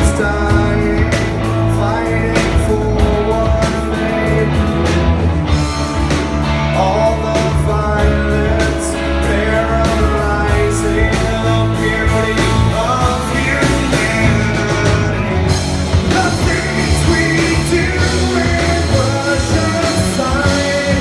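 Rock band playing a song live, with singing, electric guitar and drums.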